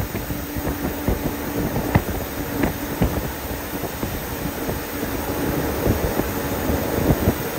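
Cabin noise of an air-conditioned bus cruising at highway speed: a steady rumble of engine and tyres with a faint steady hum, and scattered short rattles and knocks from the bodywork.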